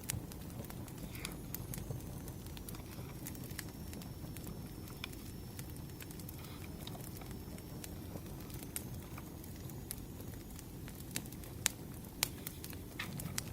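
Firewood burning with a steady low rumble and frequent sharp crackles and pops, two louder pops near the end. A faint high whistle runs through the middle.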